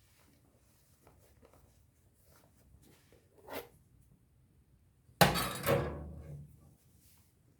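Kitchen handling noises: a light knock about three and a half seconds in, then a loud thunk of something hard set down or knocked, with a second hit half a second later that rings briefly before fading.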